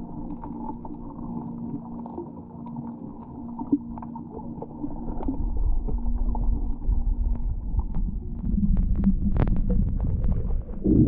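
Muffled underwater sound picked up by a submerged camera while snorkelling: water sloshing and a steady low hum, with scattered faint clicks. A low rumble grows louder about halfway through.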